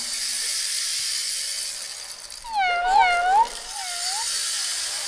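Hand-made sound effects: a steady hiss, with a string of whistle-like swoops about two and a half seconds in, each dipping and rising in pitch, repeating more and more faintly until they die away.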